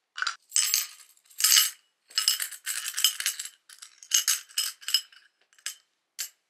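Metal coins clinking and jingling as they are dropped and pushed around in a small glazed ceramic bowl, in a string of quick, irregular rattles.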